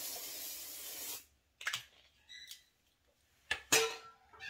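Aerosol hair shine spray hissing steadily, cutting off suddenly about a second in. A few short knocks and rustles follow, the loudest near the end.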